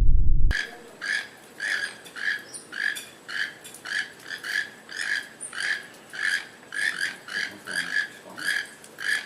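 An animal calling over and over in short, even, ringing notes, about two or three a second, starting after a low rumble that cuts off about half a second in.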